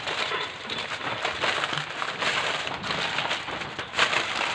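Aluminium foil crinkling and crackling as it is pressed and crimped down around the rim of a baking dish to cover it, a continuous run of irregular crackles.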